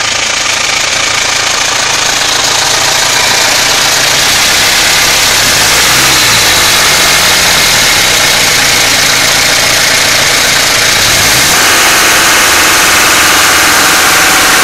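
Mitsubishi Pajero 2.8 TDI (4M40) four-cylinder turbo-diesel engine running steadily just after starting, with a strange noise that the owner suspects comes from the timing chain. Near the end a higher-pitched tone joins in.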